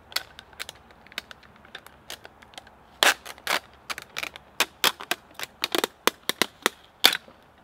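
Freezer tape pulled off its roll in short tugs and torn: a run of irregular sharp crackles and snaps, sparse at first, then denser and louder from about three seconds in.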